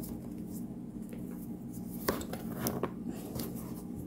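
Light handling sounds of a shoelace being wound and tied around a shoe to clamp its glued sole: a few soft clicks and rustles over a steady low hum.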